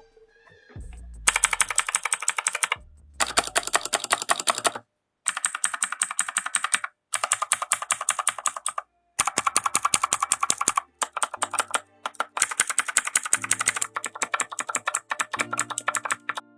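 Cosmic Byte CB-GK-16 Firefly mechanical keyboard with Outemu Blue clicky switches, typed on quickly in about eight bursts of rapid clacking key presses separated by brief silences. Faint background music is under the last few seconds.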